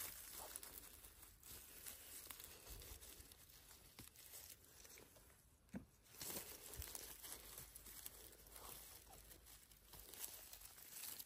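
Faint rustling and crinkling of someone moving and picking mushrooms on the forest floor, with scattered small snaps and one sharper snap about halfway through.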